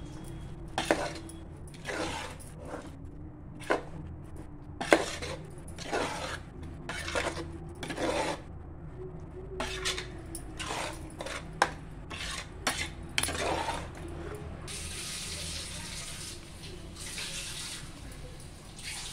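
Metal ladle stirring thick chicken-masala mixture in an aluminium pressure cooker, with irregular clinks and knocks against the pot's side. In the last few seconds the knocks stop and a steady hiss takes over.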